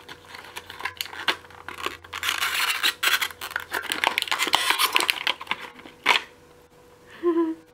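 Hands tearing and scratching open a keychain's plastic-and-cardboard blister pack: a run of rough tearing, rustling and small clicks, then a single sharp click about six seconds in.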